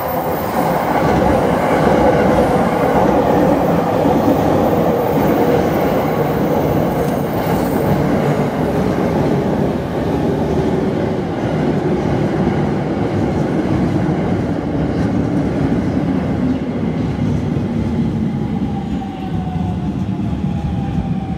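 JR East E231 series electric commuter train running into a station: steady wheel-and-motor rumble with a motor whine that falls slowly in pitch as the train slows.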